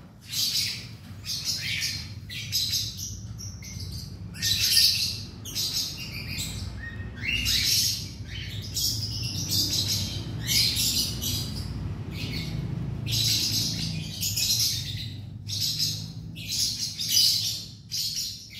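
Baby plantain squirrel (bajing kelapa) giving short, high-pitched squeaks over and over, one or two a second, while it feeds from a syringe.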